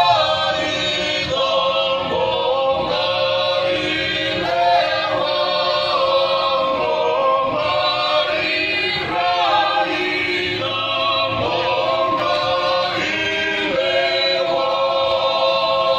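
A group of voices singing a song together in harmony, with long held notes and no clear instrumental accompaniment.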